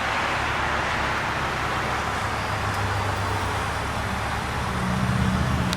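Steady road traffic noise, with the low hum of a passing vehicle's engine growing louder from about three seconds in.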